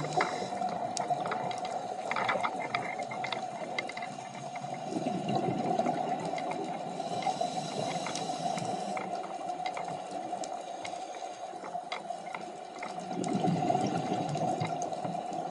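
Scuba regulator breathing heard underwater: two bursts of exhaled bubbles gurgling, about five seconds in and again near the end, with a hiss between them, over a steady hum and scattered clicks.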